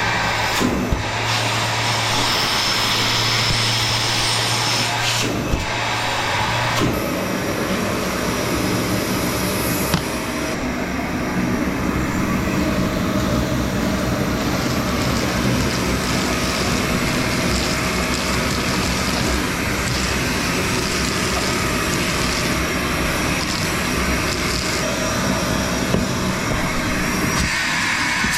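Milwaukee M18 Fuel 6-gallon cordless wet/dry vacuum running, a loud steady rush of air. A low hum under it stops and the sound shifts about seven seconds in.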